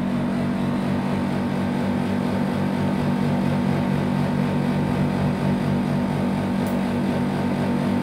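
Split air conditioner's outdoor unit running with a steady hum, its compressor on while the condenser fan stands stopped in heating mode as the high-side pressure falls.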